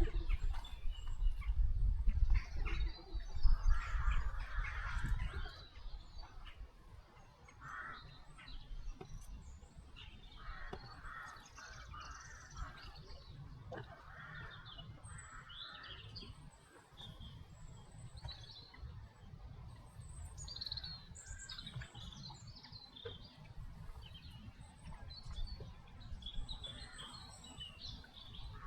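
Several wild birds calling and chirping, short scattered calls throughout, over a low rumble that is heaviest in the first five seconds.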